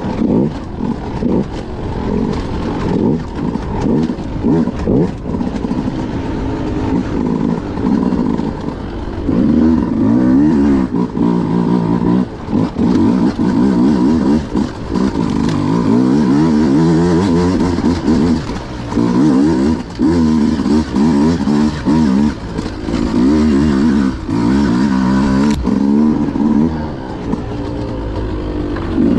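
Beta RR 200 two-stroke single-cylinder enduro motorcycle engine being ridden off-road, its revs rising and falling again and again as the throttle is opened and closed. Heard from on the bike, with knocks from the bike over rough ground in the first few seconds.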